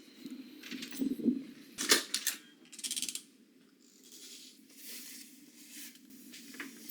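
A few sharp clicks and a quick jingling rattle of small hard objects being handled, over a faint steady hum.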